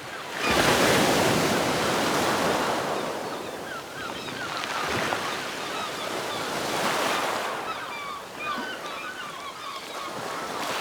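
Ocean surf breaking, rising in a big swell about a second in and again around seven seconds, with many small birds chirping over it.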